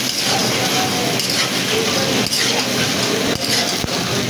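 Dumba (fat-tailed sheep) meat frying in a steel karahi over a gas burner: a steady sizzle and flame hiss, with the scrape and clink of a metal spatula stirring the pieces a few times.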